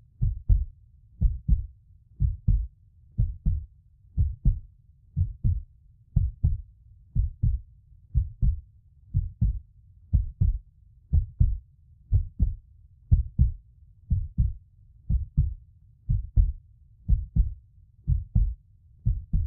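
Heartbeat sound: steady pairs of deep lub-dub thumps, about one beat a second.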